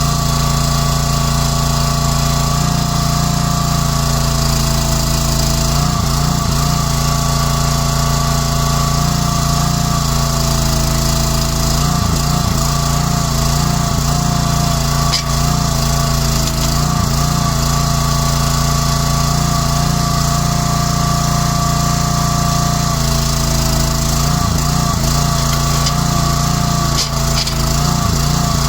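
Excavator engine running steadily, with a steady high whine that wavers slightly above the engine note. The low engine sound changes briefly about 6 and 12 seconds in, and again around 23 to 26 seconds in.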